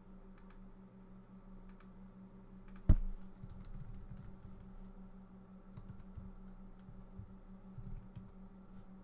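Typing on a computer keyboard: scattered key clicks in irregular runs, with one sharp loud knock about three seconds in.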